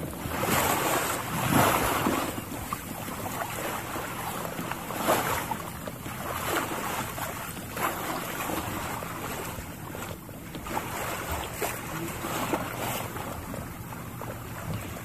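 Rushing noise of wind and water, swelling and easing every second or two.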